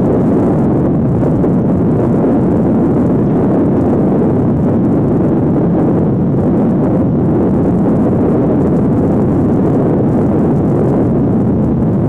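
Steady, loud rumble of wind buffeting the microphone in open ground.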